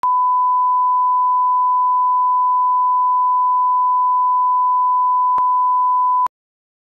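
Steady 1 kHz reference test tone, the line-up tone that goes with colour bars, holding one pure pitch and cutting off suddenly a little over six seconds in. A faint click sounds about a second before it stops.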